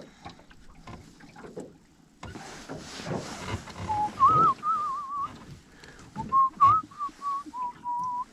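A man whistling a tune, a wavering melody that starts about four seconds in. Just before it come rustling and knocking sounds.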